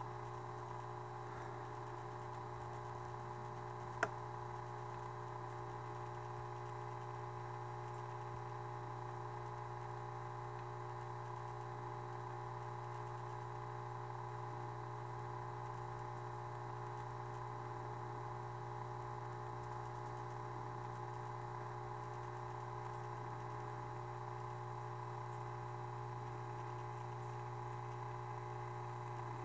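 Steady low hum of an aquarium pump, with one sharp click about four seconds in.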